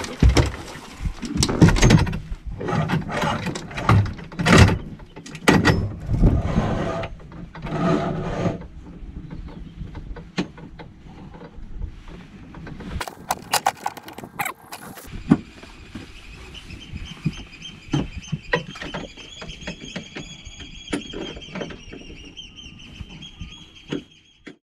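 Heavy metal knocks and clunks as a 16 kg BJ 5000 EX automatic handline fishing machine is handled and fitted onto an aluminium pole mount. The second half has a steady high squeal.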